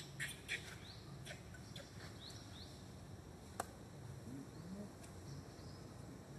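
Faint animal sounds: a few short, high rising chirps among scattered sharp clicks, over a low background hiss.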